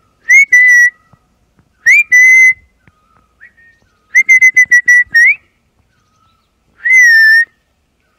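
A person whistling loudly close by in short bursts. There is a two-note whistle, then another, then a quick run of about six short notes ending in an upward slide, and near the end one held note that dips slightly.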